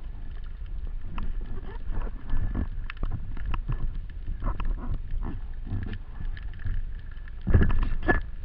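Underwater handling noise of a speargun and its shooting line heard through a camera housing: a low rumble of water movement with irregular knocks and clicks, and a faint steady high tone throughout. A louder stretch of knocks and water noise comes about seven and a half seconds in.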